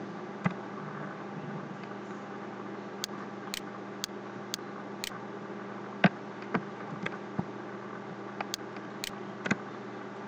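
Irregular sharp clicks of a computer keyboard and mouse as code is typed and edited, over a steady electrical hum and hiss.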